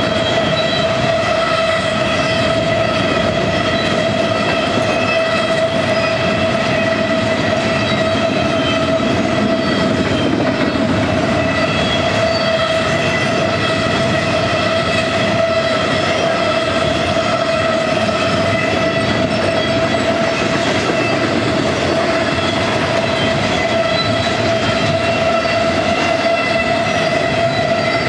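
Double-stack container well cars rolling past on curved track, with a steady high-pitched squeal from the wheels against the rails over the noise of the passing train.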